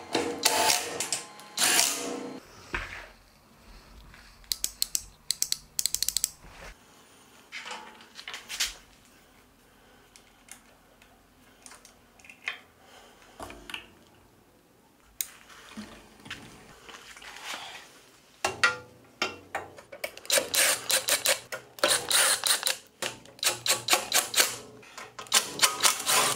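Cordless power driver driving bolts into a steel-and-aluminium stand in bursts of rapid clicking. A quieter middle stretch holds scattered small clicks of handling. A longer run of driving comes near the end.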